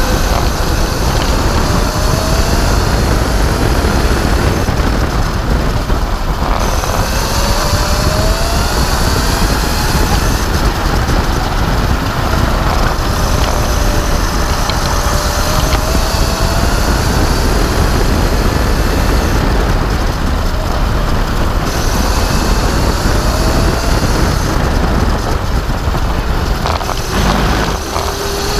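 Electric racing kart's motor whining, its pitch rising several times as the kart speeds up, over a loud rushing rumble of wind and tyres on the onboard microphone.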